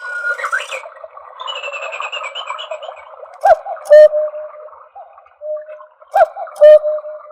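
Trenkle battery cuckoo clock sounding its electronic cuckoo call. A couple of seconds of chirping come first. Then two clicks about 2.7 s apart, each followed by a two-note 'cu-ckoo'.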